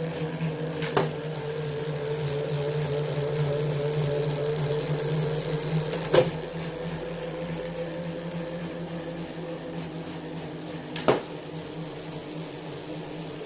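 Tacx Neo 2T direct-drive smart trainer and the bike's chain and cassette running steadily under hard pedalling, about 45 km/h at 440–460 watts, a steady whirring hum. Three sharp clicks come about a second in, midway and near the end.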